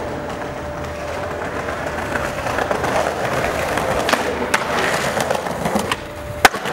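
Skateboard wheels rolling over paving slabs, with sharp clacks of the board on the ground during flip tricks; the loudest clack comes shortly before the end.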